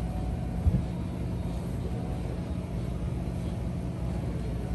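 Steady low machine hum, with one short dull knock a little under a second in.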